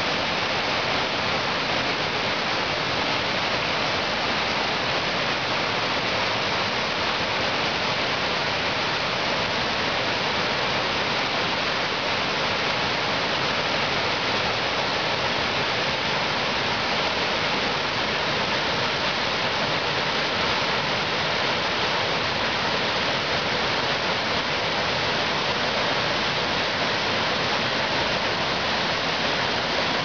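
Small waterfall and rapids pouring over rock ledges: a steady, even rush of water, bright and hissy with little deep rumble.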